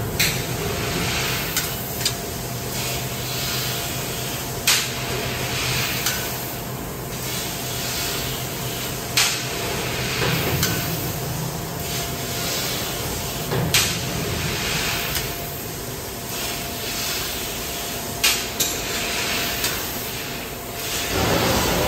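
HSG TL660S laser tube cutter cutting holes in a large steel pipe: the cut hisses in stretches, with sharp pops every few seconds over a steady low machine hum.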